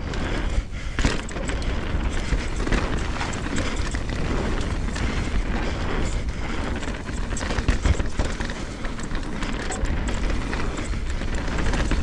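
Mountain bike riding down a dirt trail, heard from an action camera: wind buffeting the microphone as a steady low rumble, with tyre noise and frequent knocks and rattles from the bike over bumps.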